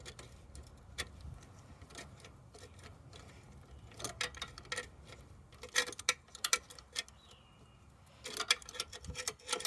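Scattered small clicks and metal taps of hands and tools working loose the plug wires and ignition coil on a motorcycle's engine, sparse at first and gathering into quick clusters about four seconds in, around six seconds, and again near the end.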